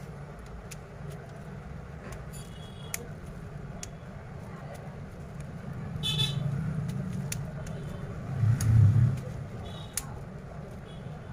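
Road traffic: a steady low engine rumble with several short horn toots, and a vehicle swelling loudest about three-quarters of the way through. A few sharp clicks are scattered over it.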